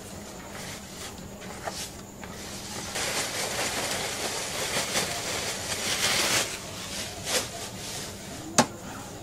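Wet ground tiger nut paste being emptied out of a black plastic bag into a cloth-lined basin: a few seconds of rustling and wet sloshing, then hands working the pulp in the milky liquid. A single sharp knock near the end is the loudest sound.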